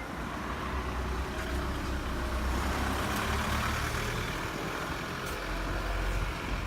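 Steady low rumble and hiss of vehicle noise, swelling slightly in the middle.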